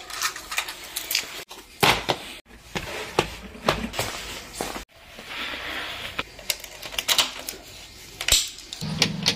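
A string of sharp clicks, clinks and knocks: keys taken off a wall key rack, footsteps in boots, then a key pushed into a motorcycle's ignition and turned. A short low hum starts near the end.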